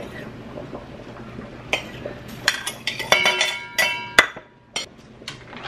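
A kitchen knife clicks against a plate while cutting tomatoes. Then come clinks and knocks as the tomatoes are scraped off the plate with the knife into a stainless-steel mixing bowl, the bowl ringing briefly, with the sharpest knock a little after four seconds in.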